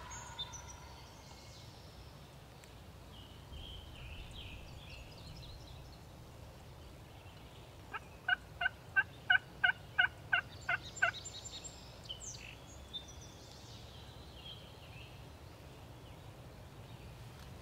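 Turkey calling: a run of about a dozen short, evenly spaced notes, about four a second, lasting some three seconds around the middle. Songbirds chirp faintly before and after.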